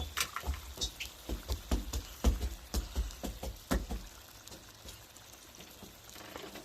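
A run of irregular knocks and clicks, a few each second, that thins out and stops about four seconds in.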